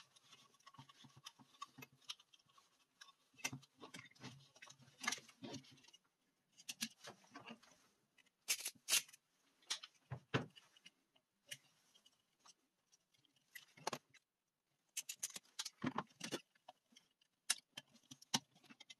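Irregular small plastic clicks, taps and rattles as a dimmer controller board and its wires are handled and fitted into a plastic hot-air-gun housing. The sharpest clicks come about halfway through, followed by a dull knock.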